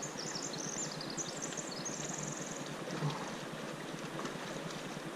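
River water rushing steadily. High chirps and a short fast trill from a small bird over the first half.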